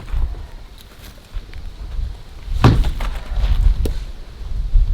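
A 3.6 kg sledgehammer striking brick once about halfway through, followed a second later by a lighter knock, over a steady low rumble.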